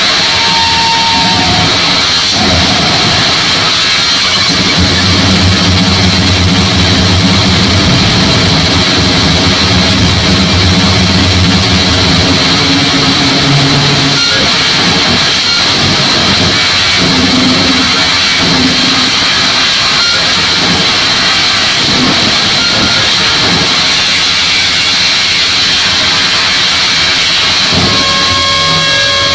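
Live harsh digital noise music: a loud, unbroken wall of hiss with a heavy low drone that comes in about five seconds in and breaks up after fourteen, and thin high tones near the end.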